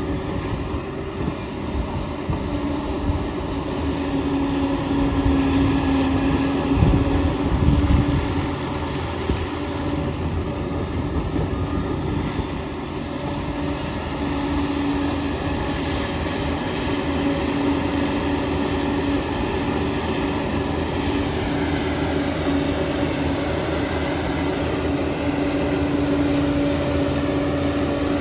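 Liebherr 746 crawler dozer working, with its diesel engine giving a steady hum and its steel tracks clanking. A heavier low rumble comes about seven seconds in.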